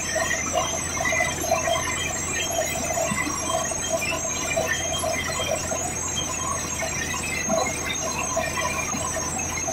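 Borewell drilling rig running while drilling, with rock cuttings and muddy water spraying out of the borehole around the drill pipe and spattering down. A steady high-pitched whine runs through it.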